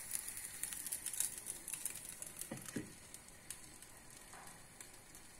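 Onion uttapam sizzling faintly on a hot griddle, with small crackles, and a couple of soft knocks about two and a half seconds in as a glass lid is set over the pan; afterwards the sizzle goes on quieter and steadier under the lid.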